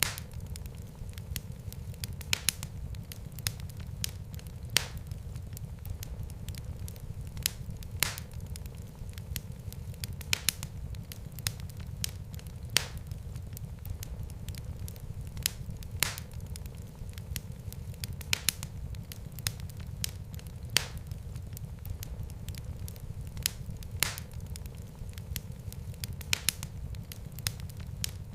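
Wood fire in a fireplace crackling and popping: a steady low rumble of flames with sharp, irregular pops every second or so.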